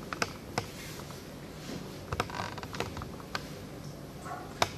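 Handling noise from filling the laser machine's water tank: a handful of short, sharp clicks and knocks from the plastic funnel, filler hose and basin, over a low steady hiss.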